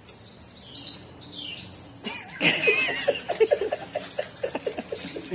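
Faint chirping of small birds, then about two seconds in a run of quick, giggling laughter.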